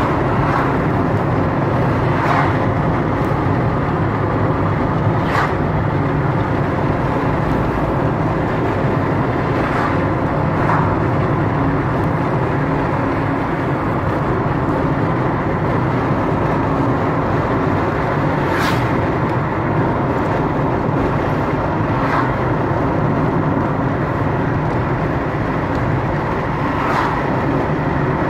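Steady road noise inside a moving car's cabin: tyre and engine noise at cruising speed, with a few brief sharper noises scattered through.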